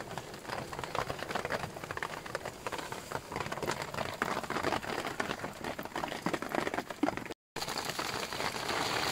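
Square sausage sizzling in a frying pan, a dense crackle of fine pops. About seven seconds in it breaks off abruptly and heavy rain takes over as a steady hiss.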